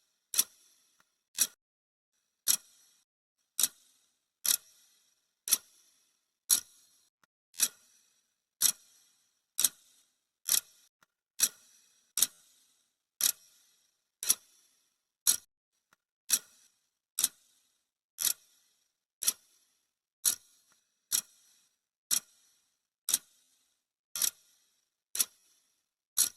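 Clock-tick sound effect: sharp, dry ticks, one a second, evenly spaced, counting off the seconds of a countdown timer.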